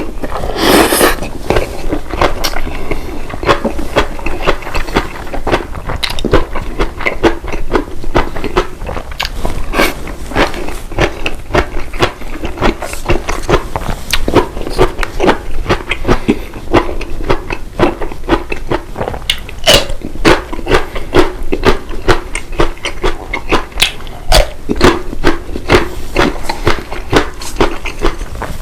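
A person chewing food close to the microphone: a steady run of wet smacks and clicks, with a louder bite about a second in.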